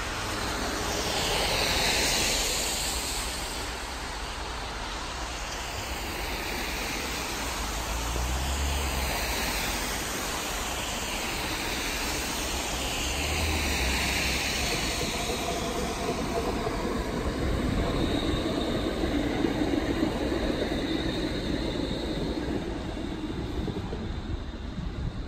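Bombardier Flexity Freedom light rail vehicle approaching on its track and passing close by. Its electric drive whines steadily as it goes past in the second half, over the noise of its wheels on the rails.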